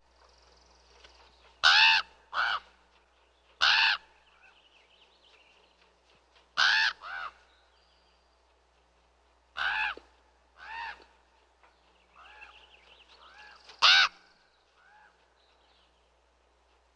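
Ravens calling: harsh, croaking caws, about eight loud ones at irregular intervals, some in quick pairs, with a run of quieter calls near the end and fainter bird calls in the background.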